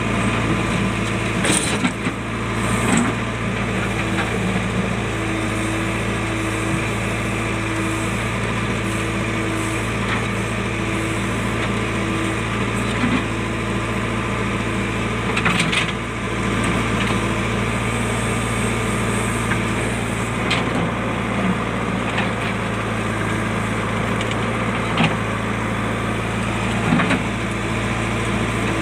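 JCB backhoe loader's diesel engine running steadily while it digs, with a few sharp knocks and scrapes from the digging scattered throughout.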